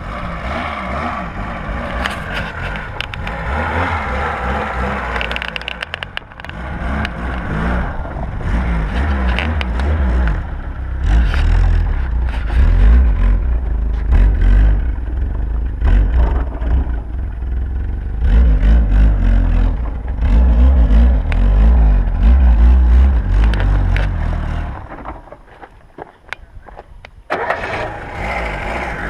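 VAZ-2106's four-cylinder petrol engine working hard and revving under load as the car crawls through a rough stretch of dirt track, loudest in the middle. Near the end it drops away for about two seconds, then starts again suddenly, like an engine being restarted.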